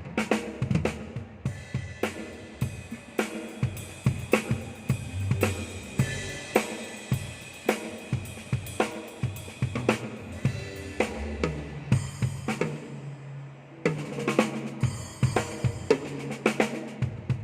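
Drum kit played through a groove during a sound check: bass drum, snare, hi-hat and cymbal strikes in a steady rhythm. In the last few seconds a low held pitched note sounds under the drums.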